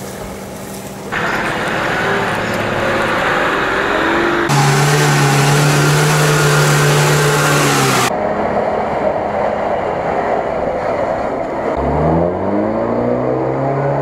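Off-road 4x4 engines (a Nissan Patrol and a UAZ-469) working hard through grass and mud, the sound jumping abruptly about one, four and a half and eight seconds in. From about four and a half to eight seconds an engine is held at steady high revs. Near the end an engine revs up sharply and holds.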